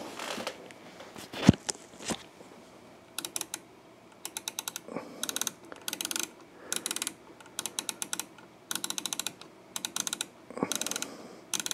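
Rotary channel selector of a President Grant SSB CB radio clicking through its detents as channels are changed, in short runs of rapid clicks one after another from about three seconds in. A single sharp knock comes about a second and a half in.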